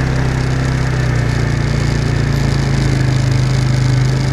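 Off-road vehicle's engine running at a steady pitch while under way, with a dense crackling, rattling noise over it from the ride over rough trail ground.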